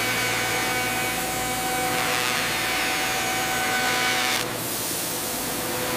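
Machine tool cutting into metal and throwing sparks: a steady, noisy grinding hiss with a few faint steady tones over it. About four and a half seconds in the tones drop away and the hiss softens slightly.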